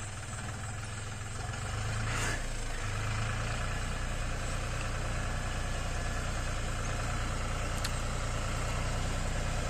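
Diesel engine of a Deutz-Fahr 45 hp 4x4 tractor running steadily at low revs in gear while it comes down a steep slope with a loaded trolley, growing a little louder over the first couple of seconds as it nears.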